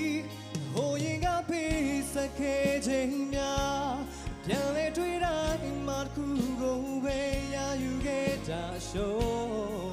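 A young man singing solo into a handheld microphone over a backing band, holding long notes with some vibrato.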